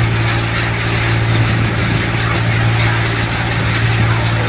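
Mini side-tokri thresher running steadily while crop is fed into it by hand: a continuous, even low hum with no change in pitch.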